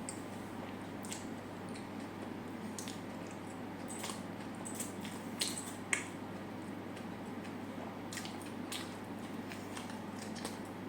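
Close-miked eating sounds: a person chewing, with scattered sharp mouth clicks over a steady hiss, the two loudest clicks about five and six seconds in.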